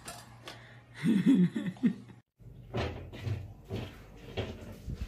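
A person's voice briefly, then several short knocks and clunks of a room door being handled, roughly half a second apart.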